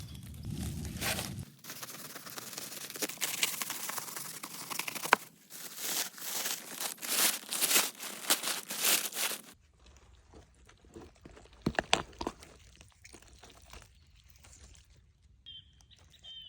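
Aluminium foil crinkling and tearing for about eight seconds, then stopping suddenly and giving way to fainter scattered crackles and clicks.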